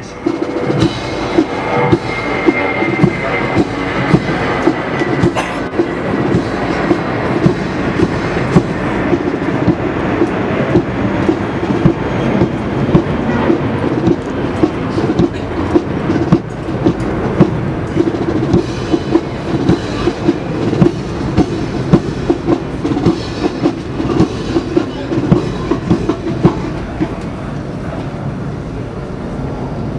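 Military marching band playing a march: brass over a steady drum beat of about two beats a second.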